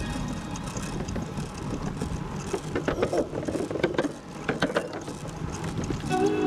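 Bicycle rolling along a wooden boardwalk, its tyres running over the planks with irregular clicks and knocks over a steady low rumble.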